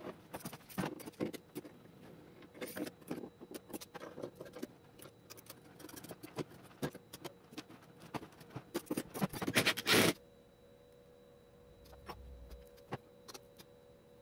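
Irregular clicks and light knocks of metal drive-shaft parts and a screwdriver being handled against a plywood boat hull. About ten seconds in they stop, leaving a faint steady hum with a few scattered clicks.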